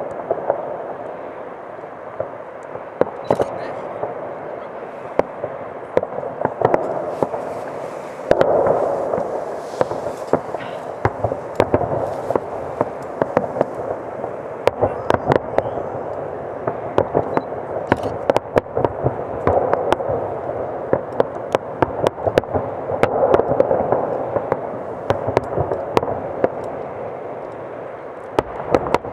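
Fireworks display: aerial shells bursting in a rapid, irregular run of sharp bangs over a continuous rumble, swelling louder about a third of the way in and again near the end.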